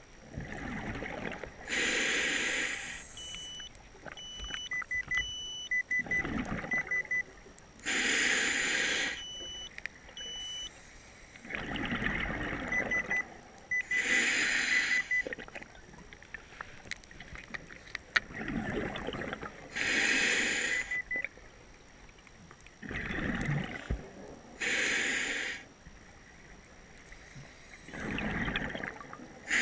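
A scuba diver breathing underwater through a regulator: a hiss of air alternating with a rumble of exhaled bubbles, about one breath every six seconds. Faint electronic beeps, typical of a dive computer, repeat in short runs.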